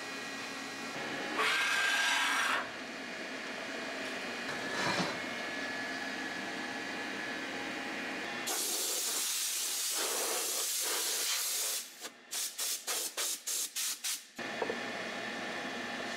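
Machine-shop sounds: a milling machine running with a steady hum, broken by loud hissing blasts. The first, about a second long, comes about a second and a half in. A longer one of about three seconds starts just past halfway, followed by a quick series of about eight short bursts.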